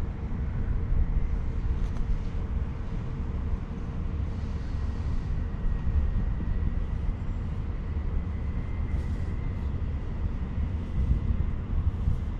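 Steady low outdoor rumble that swells and eases unevenly, with a faint thin whine through the middle.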